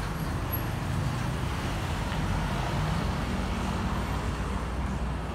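Steady low rumble of an Airbus A320-216's CFM56 jet engines as the airliner climbs out overhead, blended with road traffic.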